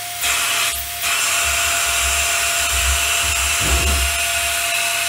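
Small CPAP blower running at full speed inside a sand-packed 3D-printed soundproofing enclosure: a steady whir of rushing air with a thin, constant whine.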